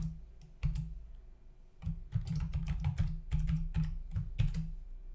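Computer keyboard keys clicking as a login password is typed: a single keystroke a little under a second in, then a quick run of keystrokes from about two seconds in.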